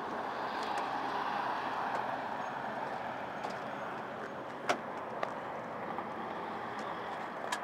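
Steady hum of cars and traffic with no clear engine note, swelling slightly early on, and a sharp knock about halfway through.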